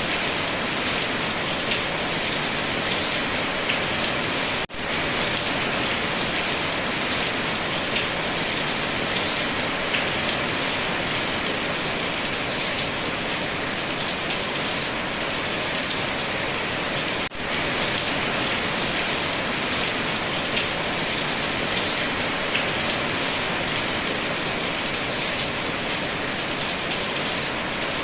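Steady, dense rain falling on a surface, with scattered individual drops ticking through the hiss. The sound drops out for an instant twice, about five seconds in and again near seventeen seconds.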